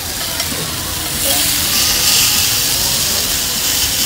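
Steak sizzling on a hot iron serving plate while it is cut with a knife and fork: a steady hiss that grows louder about a second in and stays up until near the end.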